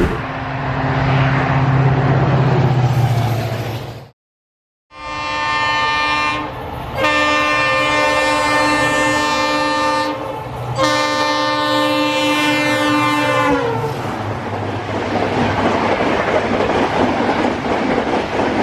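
An Indian Railways EMD WDP4-family diesel locomotive passing at full speed. A low engine rumble comes first, with a brief dropout about four seconds in. Then its multi-tone horn sounds in three long blasts, the last dropping in pitch as the locomotive goes by, followed by the steady rush and wheel clatter of the coaches.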